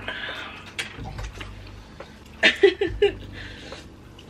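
People slurping and chewing spicy instant noodles, with a cluster of short, loud slurps about two and a half seconds in.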